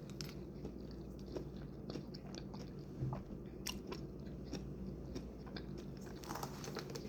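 Close-up chewing and biting of a mouthful of chicken tender salad, with small, scattered crunches and clicks.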